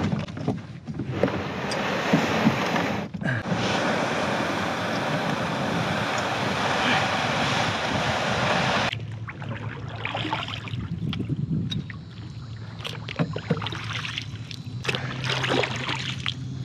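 Plastic canoe hull scraping and hissing over wet mud as it is pushed off the shore, a long steady rasp that stops about nine seconds in. After that come quieter paddle strokes, splashes and small knocks against the hull as the canoe moves on the water.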